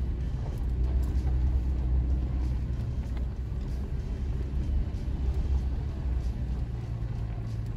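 Toyota Tacoma pickup driving on a dirt and gravel trail, heard from inside the cab: a steady low rumble of engine and tyres.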